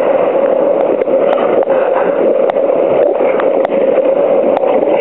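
Steady, loud noise on a river raft: rushing water and air with a constant hum running through it, and a few light knocks.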